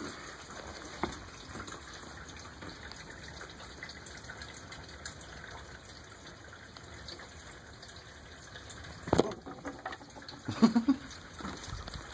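Steady rushing water-like noise, with a few knocks and rubbing sounds from the handheld phone: a sharp knock about nine seconds in and a louder cluster of bumps near eleven seconds.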